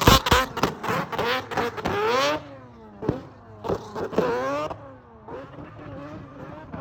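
Drift car engine revving hard in quick repeated rising sweeps, with sharp pops near the start. It drops away after about two seconds, surges once more around four seconds in, then runs fainter.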